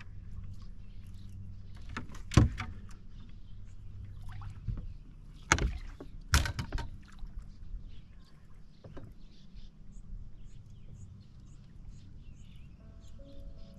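Knocks and bumps on a bass boat's deck while an angler fights a hooked bass: one loud knock about two seconds in and two more around six seconds, with lighter clicks and rustles between. A low steady hum runs underneath.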